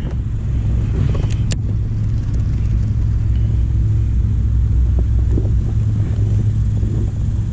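Steady low rumble, with a couple of sharp clicks about a second and a half in.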